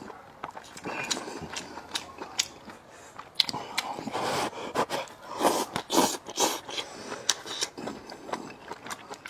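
Close-up eating sounds: chewing and biting food, with many small clicks and scrapes, busiest in the middle.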